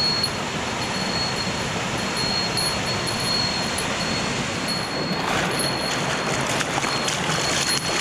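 Shallow mountain stream running and splashing over bare rock slabs, a steady rush of water that grows brighter and more splashy from about five seconds in. A thin, steady high tone runs through it, breaking off now and then.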